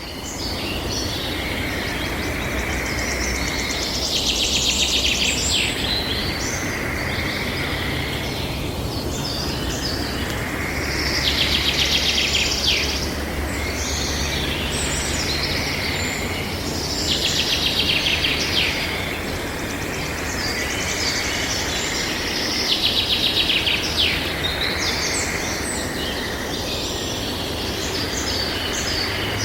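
Wild birds chirping and calling, with a rapid pulsed trill that recurs about every six seconds, over a steady low rumble.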